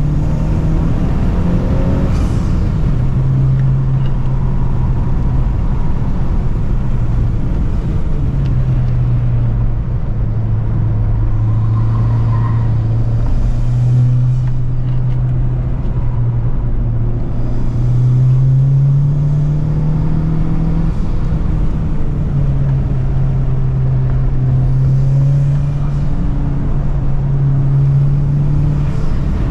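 Honda Civic Type R engine and intake under load, with loud induction noise. The engine note climbs and drops again and again as the throttle and gears change.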